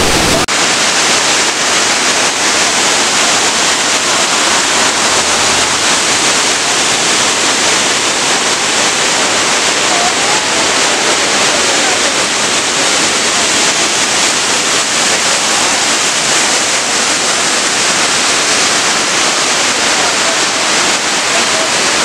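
Waterfall rushing steadily: a loud, even hiss of falling water.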